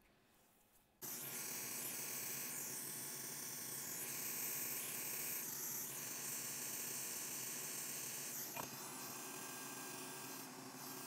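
Steady hissing noise with a faint hum, switching on abruptly about a second in after near silence.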